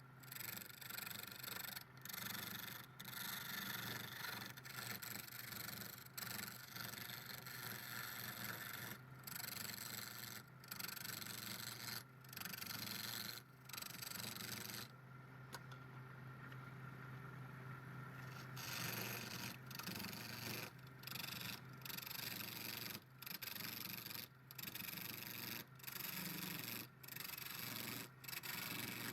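Wood lathe running while a hand-held turning tool cuts and scrapes the spinning wood, a rough hissing scrape over the steady hum of the lathe motor. It is broken by brief gaps every second or so. For a few seconds past the middle only the motor hum is left.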